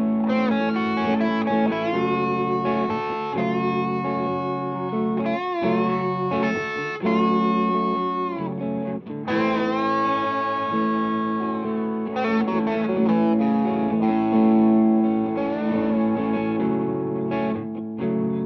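Dale Wilson Masterbuilt Stratocaster played through a Two-Rock Classic Reverb Signature amp with light overdrive. It plays a lead line with several string bends over a steady looped backing part.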